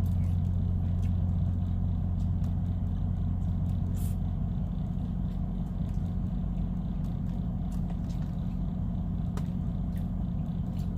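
Parked semi truck's diesel engine idling: a steady low drone, with a few faint light clicks over it.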